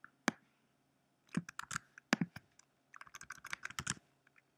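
Typing on a computer keyboard in short runs of keystrokes, entering a terminal command: a single keystroke just after the start, a scattered group about a second and a half in, and a quicker, denser run near the end.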